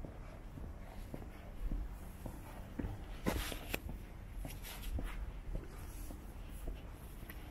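Footsteps on pavement at a walking pace, about two a second, over a steady low rumble. Around three seconds in there is a brief louder scraping rustle.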